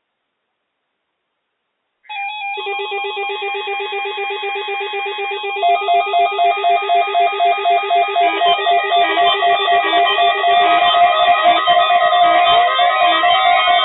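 Several weather radio receivers sounding their electronic alert beeps for a Required Weekly Test. They start about two seconds in and join one after another, building into a loud tangle of rapidly pulsing tones.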